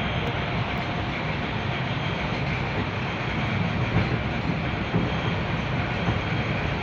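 Electric commuter train running steadily: a continuous low rumble of wheels on rails with a faint steady whine over it.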